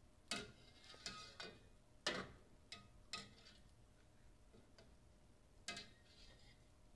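Irregular light metallic clinks, about seven in all, some with a brief ring, as a spoon stirring in a metal double-boiler pot knocks against its sides.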